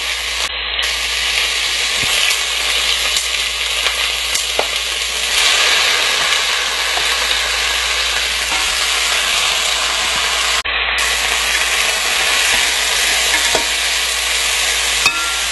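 Raw chicken pieces sizzling steadily as they fry in hot oil with browned onion and garlic in a pot, turned with a spatula near the end.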